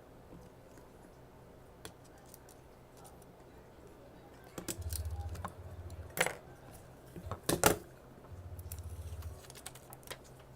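Small tools and phone parts clicking and clattering on a repair bench, a few sharp clicks in the second half, the loudest about three-quarters of the way through. A low hum comes and goes twice.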